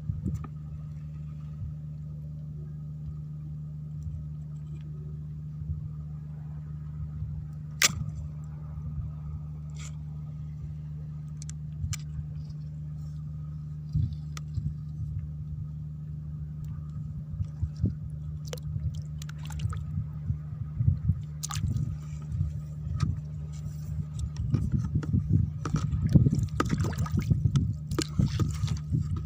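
Scattered splashes and knocks of a stick prodding in shallow seagrass water, growing busier and splashier in the last few seconds, over a steady low hum.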